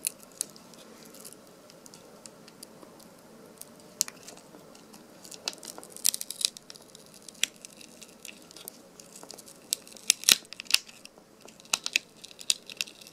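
Plastic adhesive tape being peeled off the back of a laptop LCD panel: a string of sharp crackles and clicks with short tearing sounds, the loudest few about ten seconds in.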